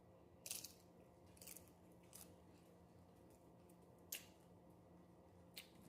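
Faint chewing of homemade nachos: about five short, scattered crunches of tortilla chips.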